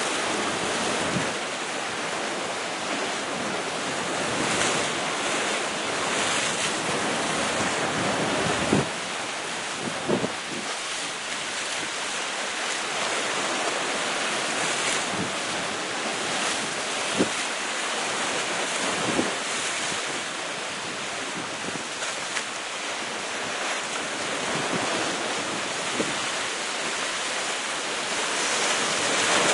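Sea waves breaking against the rocks at the foot of a cliff: a steady rushing wash of surf, with wind on the microphone and a few brief knocks.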